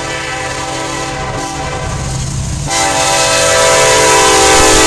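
Horn of a Norfolk Southern SD70ACE diesel locomotive sounding as the train approaches and passes. One blast fades out about two seconds in, and a louder, longer blast starts just after, over the low rumble of the train.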